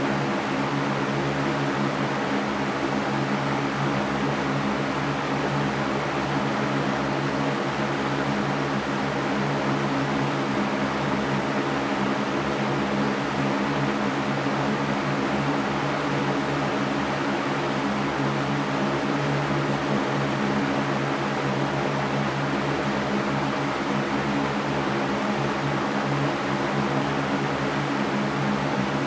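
Electric fan running steadily: an even rushing hiss of moving air over a low motor hum.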